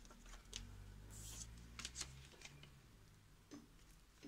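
Faint rustling and a few light clicks of paper cards and tags being handled in a handmade paper journal, over a low steady hum.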